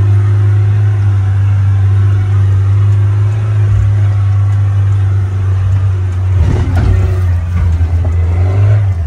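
Off-road 4x4 SUV's engine running with a steady low drone while crawling over rough ground, with a cluster of knocks about six and a half seconds in.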